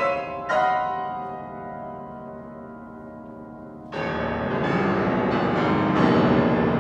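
Steinway grand piano being played: two chords struck at the start ring on with rich overtones and die away slowly. About four seconds in, a sudden loud, dense passage begins and holds to the end.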